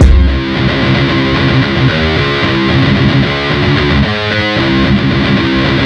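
Loud music led by distorted electric guitar playing sustained chords, with a heavy bass hit at the start.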